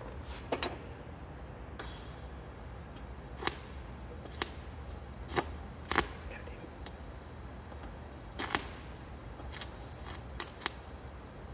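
TIG welder arcs on a steel helmet bail, with mild steel filler wire, while tacking it on: a scattering of sharp clicks and crackles. A faint high-pitched whine comes in several stretches of up to about a second and a half, over a steady low hum.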